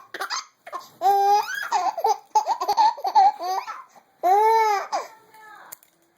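A baby laughing in a string of short, high-pitched laughs, ending in one longer drawn-out laugh about four seconds in.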